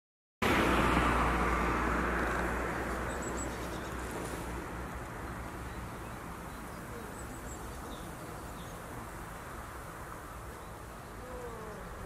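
Wind noise outdoors: an even hiss with a low rumble under it, starting abruptly about half a second in, loudest at first and settling to a steady level.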